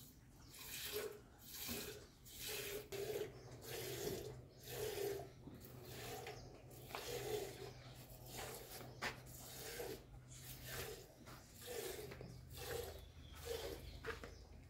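A cow being milked by hand into a small steel pot: squirts of milk hiss into the vessel in a steady rhythm, about one squirt a second.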